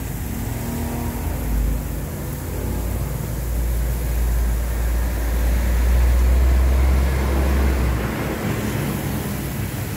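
Low rumble that builds over several seconds and stops abruptly about eight seconds in, over a steady hiss from beef skewers grilling over charcoal.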